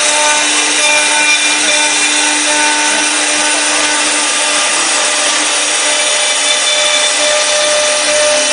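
Air-cooled engraving spindle of a CNC wood lathe routing a spiral twist into a turning wood blank: a loud, steady cutting noise of the cutter chewing wood, with humming tones that shift pitch about halfway through.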